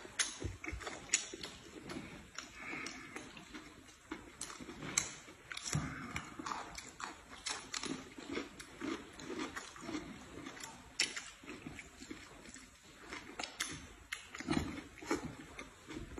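Close-up eating sounds: chewing and lip-smacking on noodles and fried chive pockets, with irregular sharp clicks of chopsticks on plates.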